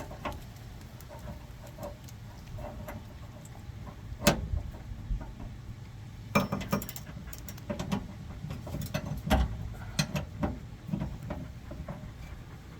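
Scattered metallic clinks and knocks of hand tools and hardware against metal during suspension work on a Jeep, the sharpest knocks about four seconds in and around six to seven seconds in, over a steady low hum.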